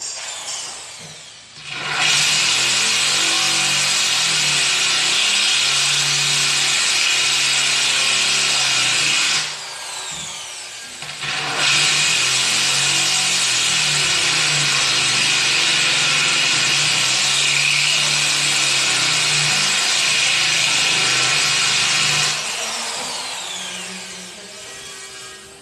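Corded electric drill running free at full speed in two long bursts, each ending in a falling whine as the trigger is released and the motor winds down.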